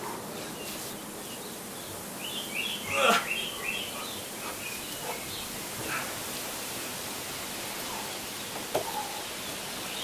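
Birds chirping over a steady outdoor background hiss, with a cluster of quick chirps about two to four seconds in. A short louder sound comes about three seconds in.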